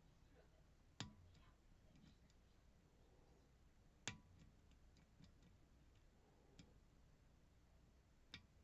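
Faint, sharp metallic clicks from a lock being worked with picking tools: a few single clicks spaced several seconds apart, the clearest about a second in, about four seconds in and near the end.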